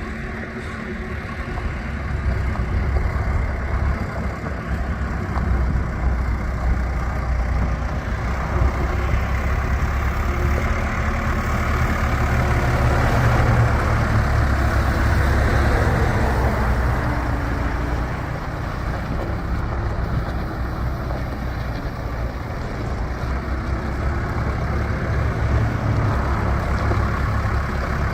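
Case 580 Super K backhoe's turbocharged diesel engine running, swelling louder around the middle and then settling back.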